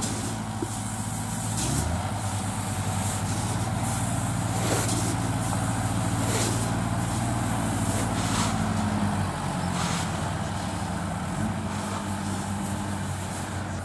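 Kubota L4508 tractor's diesel engine running steadily under load as it pulls a loaded trolley through deep mud, with its pitch shifting a little about two-thirds of the way in. A few short knocks are heard over it.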